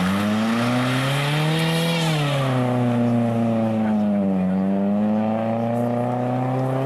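Small hatchback rally car's engine revving hard as it accelerates out of a corner and away. The engine note rises, drops about two seconds in, sags further until about four and a half seconds, then climbs steadily again.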